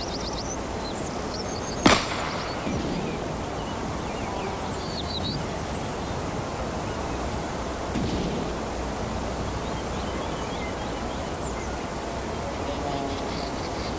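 A single gunshot about two seconds in, with a brief echo, over a steady outdoor hiss with a few faint bird chirps.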